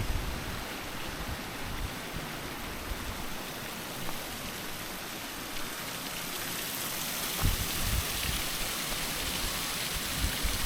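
Small waterfall's flowing water, a steady rushing hiss that grows slightly louder in the second half.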